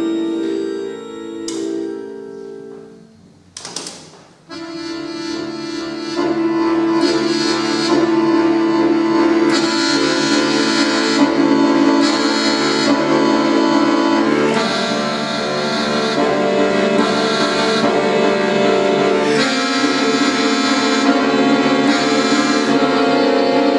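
Bayan, the Russian chromatic button accordion, playing solo: held chords fade away, a short burst of noise comes about four seconds in, then sustained chords with fast running notes come back and grow louder.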